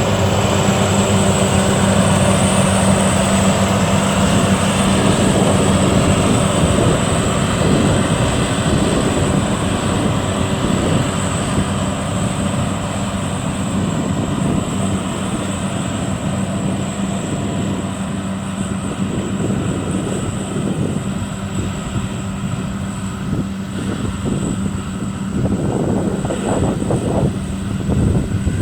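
Combine rice harvester's engine running steadily under load, a deep even drone with a thin high whine above it. Near the end the steady drone gives way to a rougher, uneven churning.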